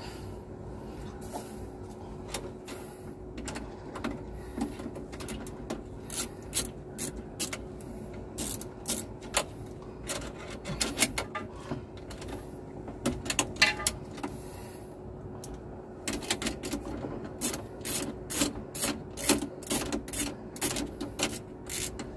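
Small metal clicks, taps and rattles at irregular intervals from hand work on an aircraft oxygen cylinder's lock and mounting strap, growing denser near the end, over a steady low hum.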